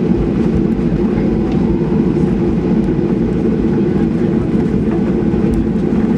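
Steady, even rumble of a Boeing 737-800's cabin with its engines at idle, heard while the aircraft taxis on the ground.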